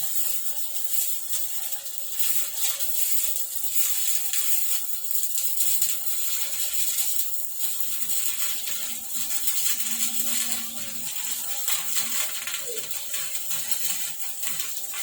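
Stick welding at 70 amps with a Yamato 200-amp inverter welding machine: the electrode's arc crackles and sizzles steadily, with a faint steady tone underneath.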